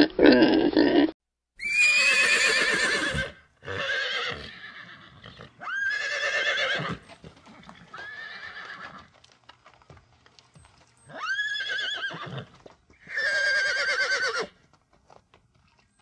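A pig grunts for about a second, then horses whinny about six times in turn. Each whinny is a long call with a trembling pitch.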